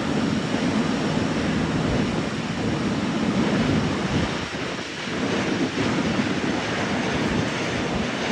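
Boeing 777 airliner's jet engines running at low taxi power on the ground: a steady, wavering rumble and hiss.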